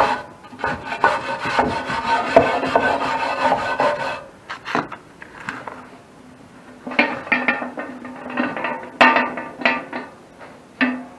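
Hand brush scrubbing soot and old gasket residue out of the gasket channel of a metal wood-furnace door, in rapid scraping strokes for about four seconds. After a quieter spell, more scraping and knocks come as the door is handled.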